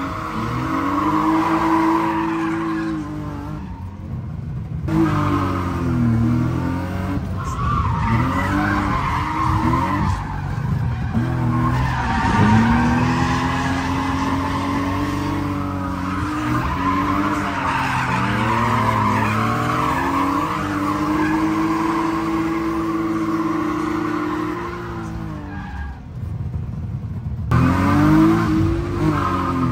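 Drift car engines revving hard, pitch climbing and dropping again and again, with tyres squealing as the cars slide. The sound drops briefly at about four seconds and again near the end.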